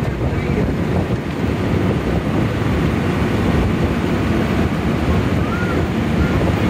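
Steady rumble of a moving vehicle heard from inside through an open window: road and engine noise mixed with wind buffeting the microphone.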